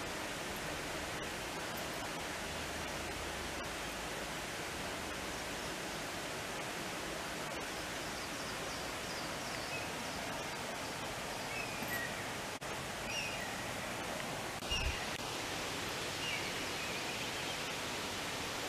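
Steady, even outdoor background hiss, with a few faint bird chirps in the second half and a short low thump about fifteen seconds in.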